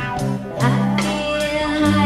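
Music: a guitar-led song with bass notes underneath.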